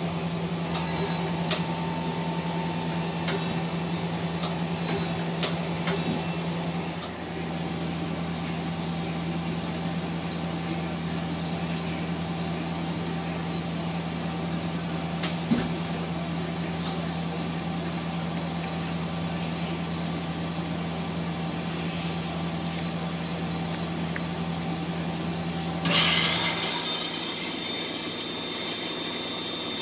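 2011 Okuma LB4000 EX CNC lathe running idle with a steady hum, with a few short high beeps in the first few seconds. About 26 s in, a drive spins up with a fast rising whine that settles into a steady high whine.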